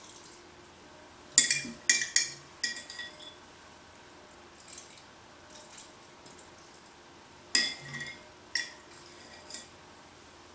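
Glassware clinking: sharp, ringing glass-on-glass clinks, a cluster of four about a second and a half in and another cluster about seven and a half seconds in.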